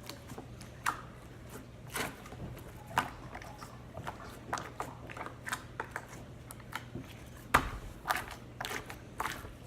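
Homemade slime being squeezed and pulled in the hands, giving irregular small sticky clicks and snaps.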